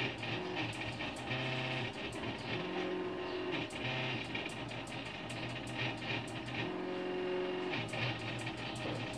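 NEMA 17 stepper motors of a homemade GRBL laser engraver whining as the head scans back and forth. The whine holds one pitch for half a second to a second, then jumps to another, with frequent sharp clicks.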